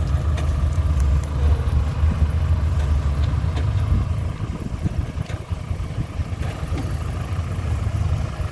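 Kubota DC60 combine harvester running steadily, a low diesel engine drone with a faint steady whine above it. The drone eases slightly and turns more uneven about halfway through.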